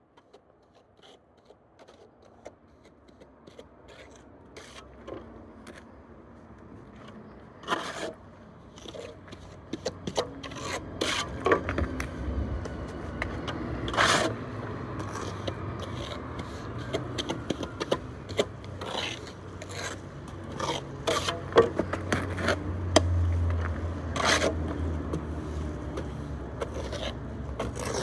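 Steel plastering trowel scraping top-coat render onto a pier and smoothing it, in repeated strokes with sharp clicks of steel on the hawk and render. A low rumble sits underneath in the second half.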